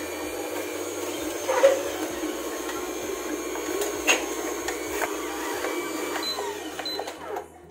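Horizontal slow juicer running, its motor turning the auger with a steady hum as fruit pieces are pushed down the feed chute, with a couple of sharper crunches as the pieces are crushed.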